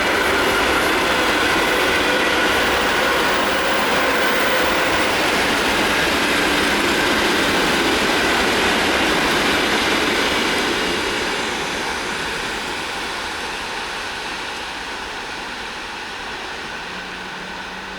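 Passenger train hauled by a ChS7 electric locomotive passing close by: a steady rush and rattle of wheels on rails that starts easing off about eleven seconds in.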